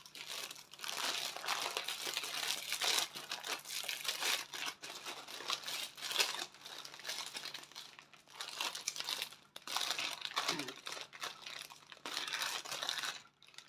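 Packaging crinkling and rustling in irregular bursts as a diamond-painting kit is unpacked by hand.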